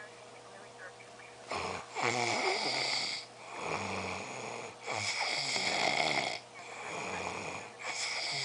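A drunk person asleep and snoring loudly. The snores start about a second and a half in and come about every one and a half seconds, with short quiet gaps between them.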